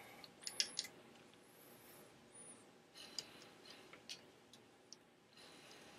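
Commodore 1541 floppy drive spindle motor running with a faint steady whir, forced on by grounding the drive's motor-enable pin, which shows the motor driver circuit and motor work. A few scattered clicks sound over it.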